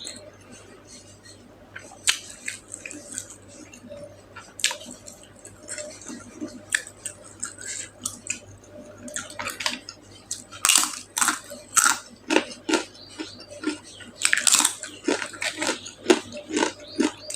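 A person chewing and eating, with wet mouth smacks and sharp clicks. These are sparse at first and come thicker and louder from about halfway in.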